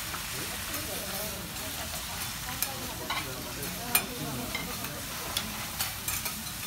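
Chopped garlic and bits of meat sizzling on a hot steel teppanyaki griddle, with butter going onto the plate partway through. Several sharp metal clicks from steel spatulas against the griddle, the loudest about four seconds in.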